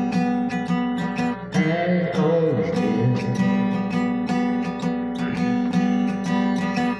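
Acoustic guitar strummed in a steady rhythm, its chords ringing, in an instrumental stretch of a live song.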